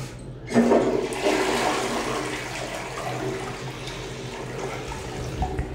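Toto S300D toilet flushing: a sudden rush of water about half a second in, then water swirling and draining through the bowl, slowly easing off. A strong flush.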